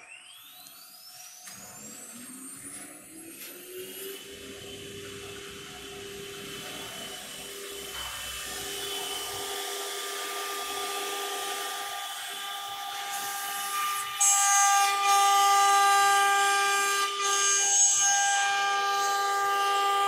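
CNC router's ATC spindle spinning up, a whine rising in pitch over about four seconds, then running steadily at speed. About fourteen seconds in, the sound becomes much louder, with several more steady whining tones and hiss added.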